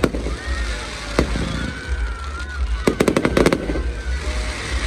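Fireworks going off: a sharp bang at the start and another about a second in, then a rapid string of crackling reports about three seconds in.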